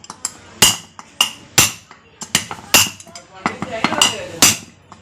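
Light hammer blows, about two a second, tapping a new 6004 ball bearing into its seat in a Hero Duet scooter's gearbox casing; each blow is a sharp metallic clink with a brief ringing tone.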